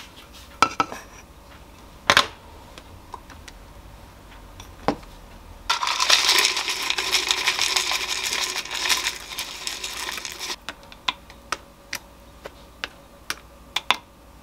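Granola poured from a glass jar onto a bowl of yogurt: a dense, clattering rattle that starts about six seconds in and lasts about five seconds. A few sharp knocks come before it, and a string of light separate clicks after it as whole almonds are dropped onto the bowl one by one.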